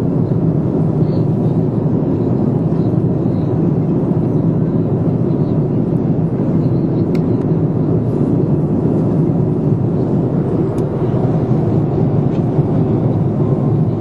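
Airliner cabin noise in flight: a steady, even rush of engine and airflow noise, low and unchanging in level.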